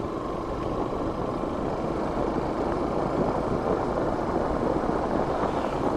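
Motorcycle running at a steady pace on the move, a continuous even noise of engine and road.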